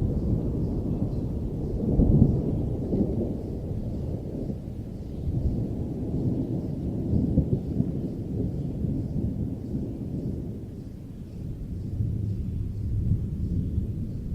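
A low, uneven rumble that swells and fades, with faint, evenly spaced ticking high above it.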